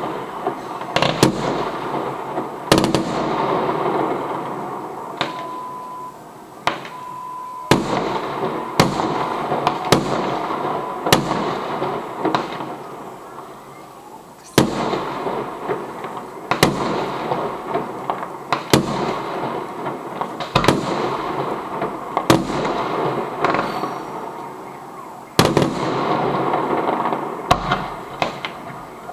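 Fireworks display: sharp bangs of bursting shells roughly every one to two seconds, with dense crackling between them.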